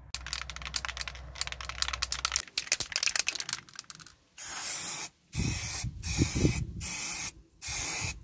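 An aerosol spray-paint can is shaken, its mixing ball rattling quickly for about four seconds. It is then sprayed in about five short hissing bursts, coating a steel cleaver blade with black paint.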